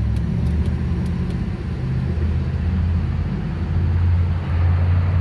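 Tow truck's engine idling steadily, a low even rumble.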